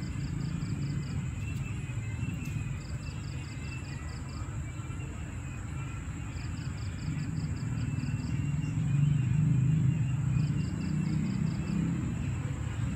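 Night ambience: a steady low rumble, with short trains of rapid, high-pitched insect chirps recurring every two to three seconds over a thin, steady high whine.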